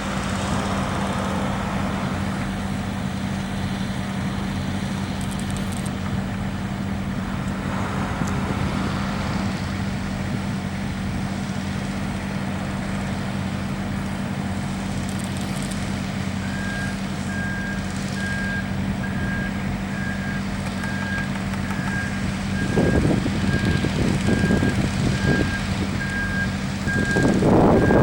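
Diesel engine of a ready-mix concrete truck running steadily. A little past halfway a reversing alarm starts beeping at an even pace, and near the end louder noisy stretches rise over the engine.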